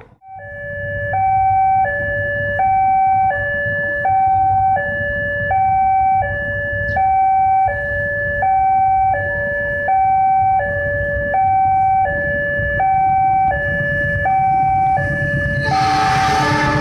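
Two-tone hi-lo warning siren alternating steadily between a higher and a lower note, each held under a second, over the steady low running of a diesel engine. Near the end a louder rushing noise joins in.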